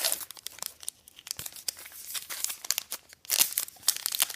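A baseball-card pack's wrapper being torn open and crinkled by hand: bursts of crackling and tearing with small clicks between, loudest at the start and again about three and a half seconds in.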